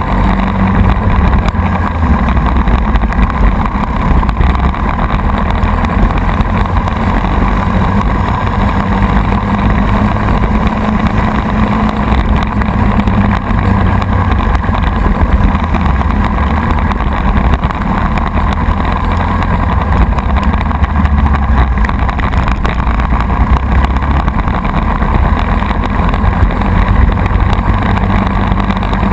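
Racing kart's single-cylinder Briggs & Stratton Animal four-stroke engine running hard, heard from the kart itself, its pitch shifting a little as it goes.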